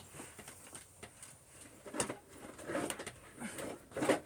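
Irregular knocks and clatter of plastic vacuum cleaner wands and tubes being handled and pulled out of storage, with the sharpest knocks about two seconds in and near the end.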